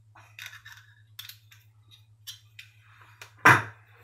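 The stiff, aged blade of a 1942 Sheffield-made soldier's pocket knife being worked open: small metallic clicks and scrapes, then one loud snap about three and a half seconds in as the blade springs into place. The old joint is very difficult to open.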